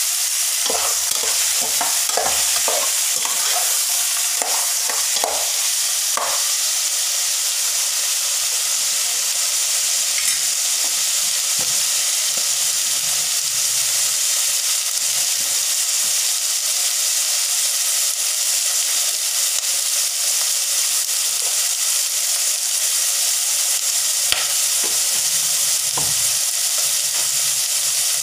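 Chicken pieces sizzling in a hot stainless steel pot, a steady high hiss. A metal ladle clicks and scrapes against the pot during the first six seconds or so.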